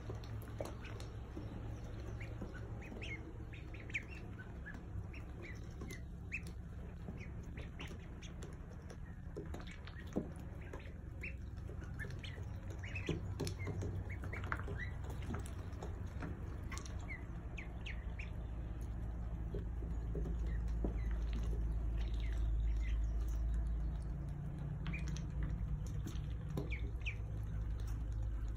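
A group of ducklings peeping: many short, high calls scattered all through, over a steady low rumble that swells for a few seconds past the middle.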